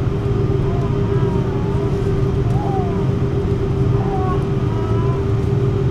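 Steady machine drone with a constant mid-pitched hum, with faint voices talking in the background.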